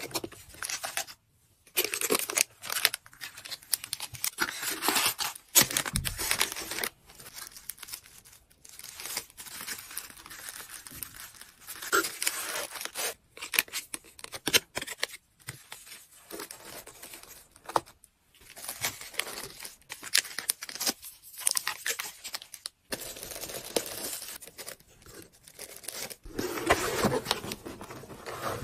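Close-up packing sounds: paper cards, a clear plastic bag and wrapping rustling and crinkling in irregular bursts as they are handled and slipped into a box. Near the end a white cardboard mailer box is folded shut.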